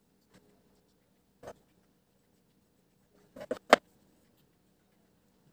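Cake-decorating tools being handled: a single light click about a second and a half in, then a quick run of three or four knocks, the last the loudest.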